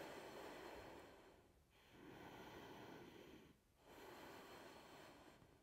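Faint, slow audible breathing: three long, even breaths about two seconds apart.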